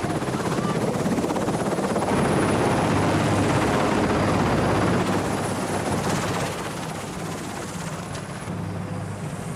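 Helicopter on the ground with its rotor turning: a steady rotor and turbine noise, louder in the middle and easing off after about five seconds.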